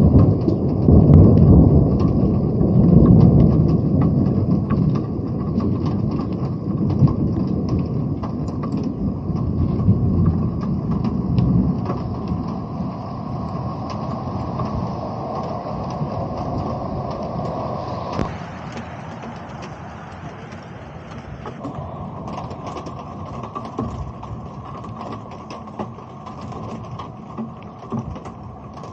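Thunder rumbling low and slowly dying away over the first dozen seconds, over steady rain with raindrops tapping close on the uncased camera.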